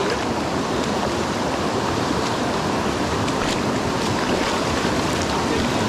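Steady rush of fast water from a flooded, swollen creek, with a few faint clicks.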